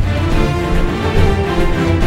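Theme-style music with a strong bass and held notes.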